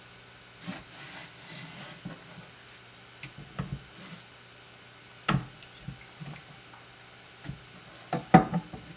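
Knife and fish being worked on a wooden cutting board during sea bass filleting: scattered soft knocks and scrapes, a sharp knock about five seconds in, and a quick cluster of knocks near the end.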